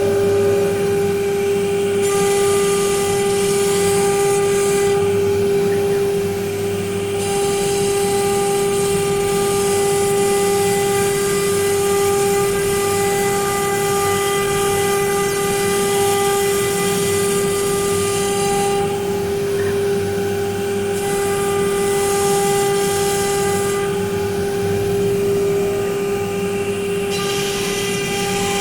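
Homemade CNC machine running, its spindle giving a steady high whine. Several times, for a few seconds each, a higher hiss and extra whine join in.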